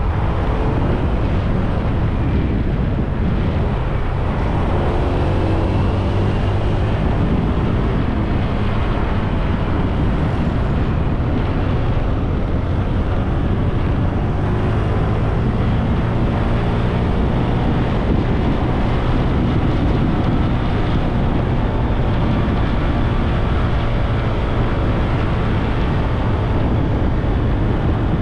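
Motorbike engine running while riding along a road, its note rising and falling with the throttle, under steady wind rush on the microphone.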